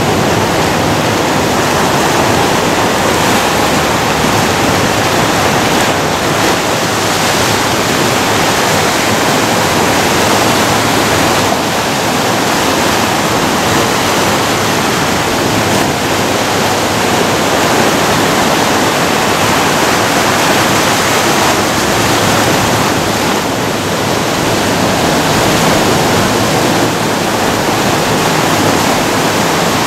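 Ocean surf breaking and washing over a rocky beach: a steady, unbroken rush of waves.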